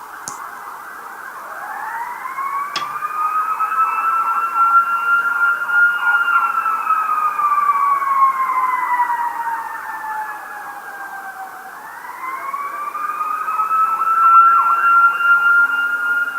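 Police car siren on a slow wail, its pitch climbing, sinking gradually and climbing again, growing louder over the first few seconds as it draws close. A brief click sounds near the three-second mark.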